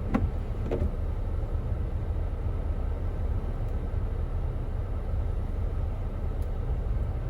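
Road noise inside a moving car: a steady low rumble from driving, with two short knocks within the first second.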